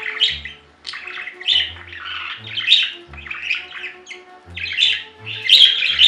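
Budgerigar chattering and squawking in a string of short, scratchy bursts, over background music.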